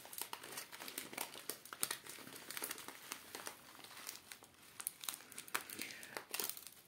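Plastic bag of green buckwheat crinkling as hands open and handle it, in many irregular crackles, with the dry grains then pouring from the bag into a plastic tray near the end.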